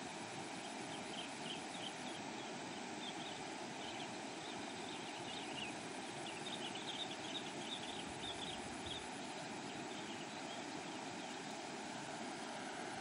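Steady outdoor background noise, an even hiss, with clusters of faint, short high chirps coming and going, thickest around the middle.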